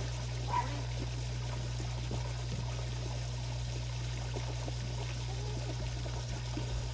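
Steady running water: a pool inlet jet pouring into the water of a swimming pool, over a steady low hum.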